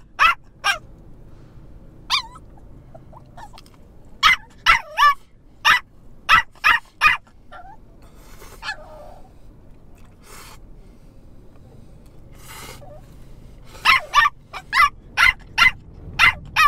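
Yorkshire terrier puppy yapping in short, high barks in quick runs, with a gap of several seconds mid-way and a fast run near the end. This is a puppy barking for the pizza it has been told it cannot have.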